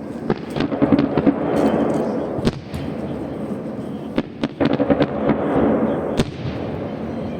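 Festive fireworks salute: a run of sharp bangs from bursting shells, irregularly spaced, over a continuous crackle and rumble.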